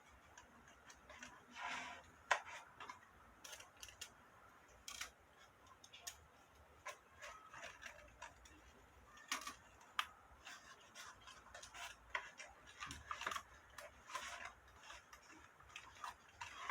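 Faint, irregular small clicks and taps of fingers handling a dried cicada specimen, setting its legs in place by hand.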